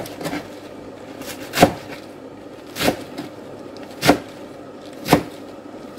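A kitchen knife chops through a bunch of Malabar spinach onto a plastic cutting board, four separate chops a little over a second apart.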